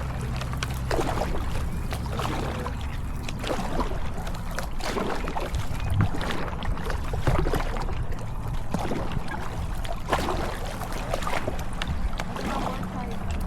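Kayak paddle strokes splashing the water at irregular intervals, over a low wind rumble on the microphone.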